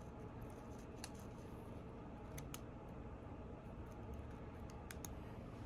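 A few faint, sharp clicks and taps of a small precision screwdriver and a tiny screw against the open iPhone 8's internal parts, the screw hard to place because the driver tip is not magnetized, over a low steady room hum.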